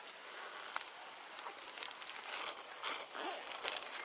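Light rain pattering and dripping on forest leaves, making irregular soft taps and crackles.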